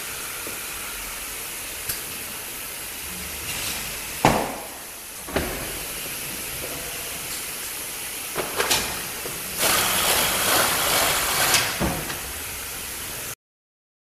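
Automated robot box-packing line running: a steady machine hum broken by several sharp clunks, the loudest about four seconds in, and a hiss of air lasting about two seconds around ten seconds in. The sound cuts off suddenly near the end.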